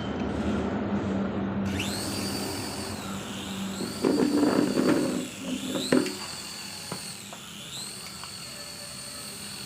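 Small electric motor and rotors of an RC mini helicopter spinning up with a high whine that rises and falls in pitch several times as the throttle changes. Loud clattering comes about four to six seconds in, ending in a sharp knock.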